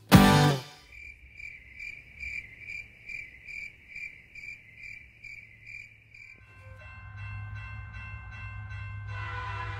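The band's last chord rings out briefly. Then crickets chirp in an even pulse, about two to three chirps a second. A low rumble of an approaching train builds, and a horn-like chord of several steady tones sounds near the end.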